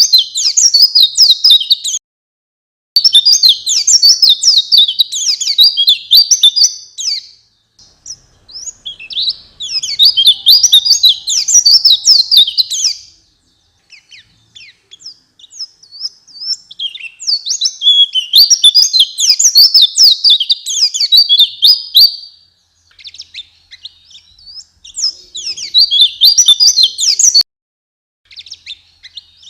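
White-eye (pleci) song: fast, high twittering phrases a few seconds long, repeated with short pauses between them. It is a lure recording played to get a caged white-eye singing.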